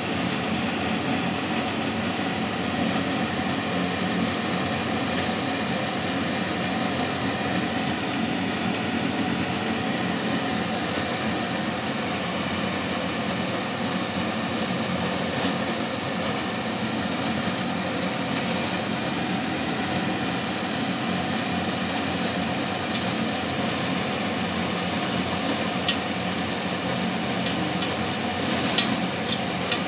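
A steady hum and hiss in the kitchen while popcorn kernels heat in oil in a lidded stainless steel pot. Near the end the first few kernels pop, sharp single clicks against the pot and its glass lid.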